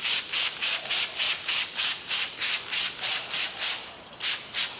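Hand trigger spray bottle spraying Cooper's paint stripper onto a car panel: a quick run of short hissing squirts, about four a second, a brief pause, then two more squirts near the end.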